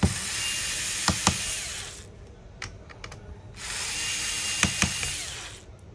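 Small electric screwdriver running twice, each run about two seconds long, backing out screws from a laptop's metal keyboard plate; each run has a thin high whine and a couple of sharp clicks.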